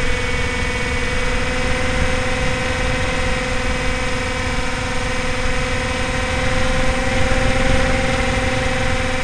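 Electric motor and propeller of a Flying Fox RC plane in flight, a steady whine at constant pitch, heard from the onboard camera with wind rushing over the microphone.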